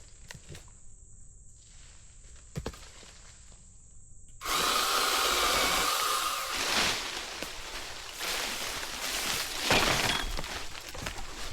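Cordless brushless pole saw switching on about four and a half seconds in and cutting into a cherry limb, the motor and chain running steadily with a dip partway and a louder surge near the end. Before it there are only a few faint handling clicks.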